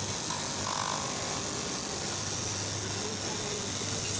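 Electric straight-knife fabric cutting machine running steadily as its vertical reciprocating blade cuts through a deep stack of fabric plies, a constant motor hum.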